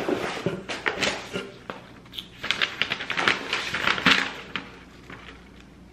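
A package being unwrapped by hand: packaging and a cardboard box rustling and crinkling, with scattered clicks and taps from handling, busiest in the middle and dying away near the end.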